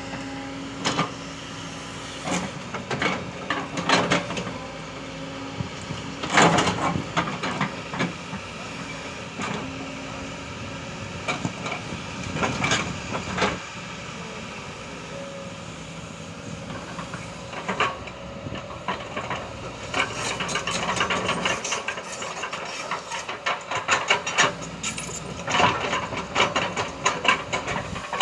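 Excavator engine running steadily under irregular knocks, scrapes and clatter of the bucket working against rock, the knocking growing busier over the last several seconds.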